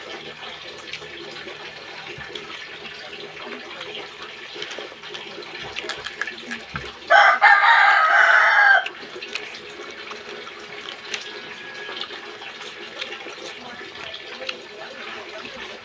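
A rooster crows once, loud and about two seconds long, midway through, over a steady hiss and small clicks from a crab shell being picked apart by hand.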